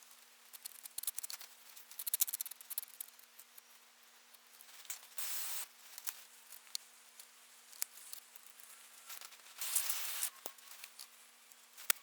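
Irregular clicks, taps and two longer scraping sweeps as excess molding sand is cut down and cleaned off a sand-casting flask, over a faint steady hum.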